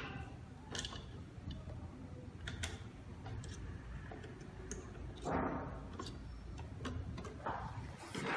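Scattered clicks and light knocks of a fingerprint door lock's handle and lock body being handled on a door panel, with two brief scraping rustles about five and seven and a half seconds in.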